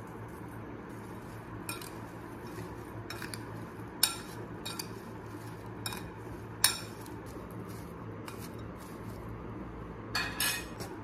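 A metal spoon clinking and scraping against a glass bowl while stirring salt into cut gooseberry pieces. The clicks come irregularly, the two loudest about 4 and 6.5 seconds in, with a quick flurry of clinks near the end.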